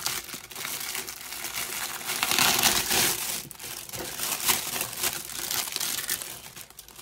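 Packaging crinkling and rustling as it is handled and pulled away from newly unboxed molds, a busy crackle of many small clicks, loudest about two to three seconds in.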